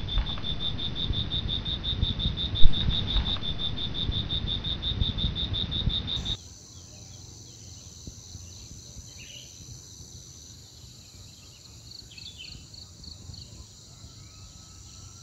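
Crickets trilling in a fast, even pulse over the loud, steady rush of heavy rain at night. About six seconds in this cuts off abruptly to a much quieter steady hum of insects with a few short chirps.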